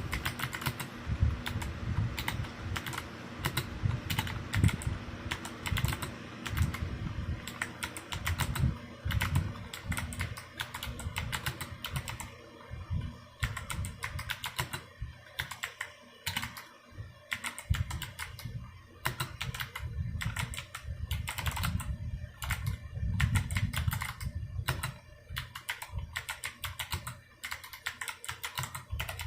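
Continuous typing on a stock Drop CTRL high-profile mechanical keyboard with Kailh Box Jade clicky switches under PBT keycaps: a fast, uneven stream of sharp clicks.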